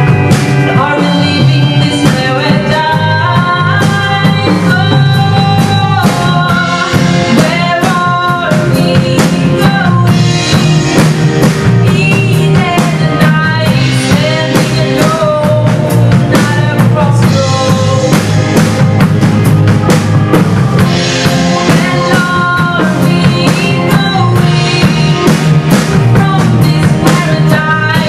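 A live band playing a song: drum kit, bass, electric guitar, piano and synth, with a woman singing the lead vocal over them.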